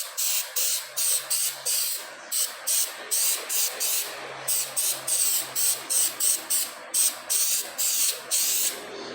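Aerosol brake-noise silencer sprayed onto the backs of brake pads in short repeated hissing bursts, about three a second.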